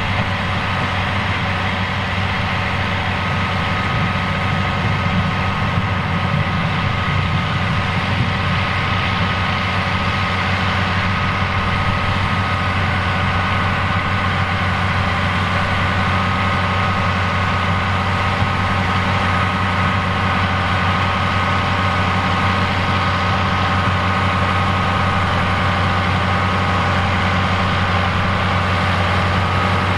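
Fiat 110-90DT tractor's diesel engine running steadily, a low engine note with a steady high whine above it.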